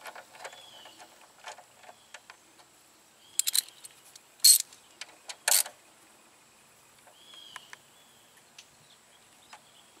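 Metal hand tools and parts clinking: scattered light clicks, a quick run of sharp clicks about three and a half seconds in, then two louder short clanks a second apart.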